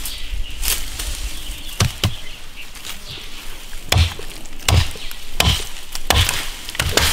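Heavy chopping blows from a hand tool, each a deep thud with a sharp crack. Two come close together about two seconds in, then a steady run of blows about three-quarters of a second apart from about four seconds in.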